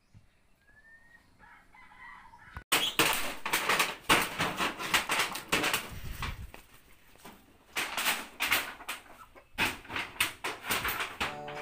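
Chickens clucking and flapping their wings in a loud, irregular flurry that starts suddenly about a third of the way in, after a quiet stretch with a single short rising bird chirp.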